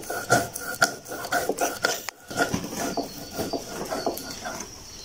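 Stone roller rubbed back and forth over a stone grinding slab (shil-pata), grinding soaked rice with a little water into a fine paste, in rasping strokes about two or three a second. The grinding stops about two seconds in, and scattered light knocks follow.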